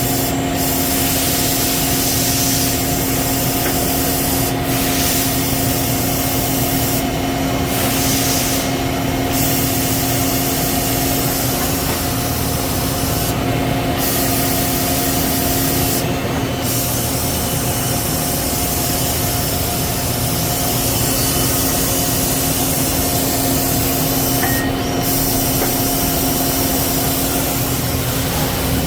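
Citizen K16E CNC Swiss-type lathe running a program with its high-pressure coolant on: a steady machine hum under a constant spraying hiss, the hiss briefly cutting out several times.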